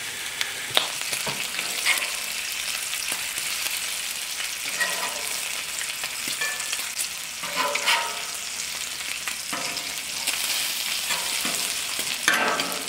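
Bacon frying on a Camp Chef steel flat-top griddle: a steady sizzle, broken by a few sharper clicks and scrapes as the strips are turned.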